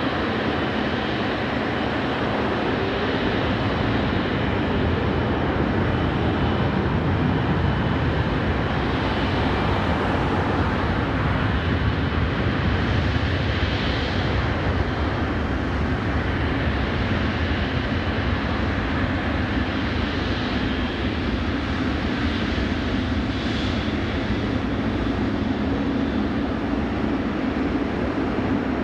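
Boeing 777F freighter's two GE90 turbofan engines running at taxi thrust as the aircraft rolls past close by: a steady, even jet rumble and hiss with a faint high tone.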